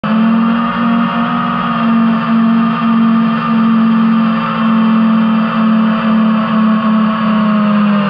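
Quadcopter drone's electric motors and propellers whining steadily at one pitch, with slight brief dips as the throttle eases.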